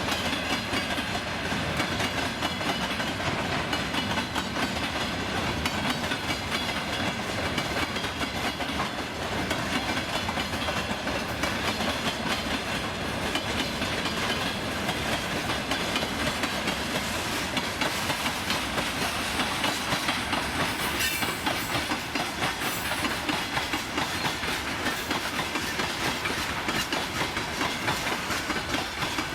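Freight train wagons rolling past, steel wheels clattering steadily over the rail joints.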